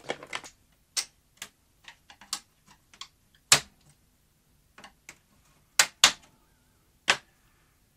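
Irregular sharp plastic clicks and knocks as the black plastic bottom cover of a Skantic VCR-LP (Philips N1700 clone) video recorder is worked loose by hand and its catches are pressed. The loudest knocks come about halfway through and around six and seven seconds in.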